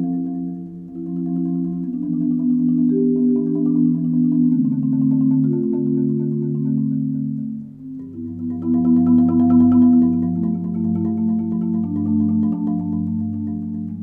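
Marimba played with a graduated set of four 0gravity Percussion Jupiter yarn mallets, rolling slow sustained chords. About eight seconds in a louder, fuller chord with a low bass note comes in, then the playing tapers off near the end.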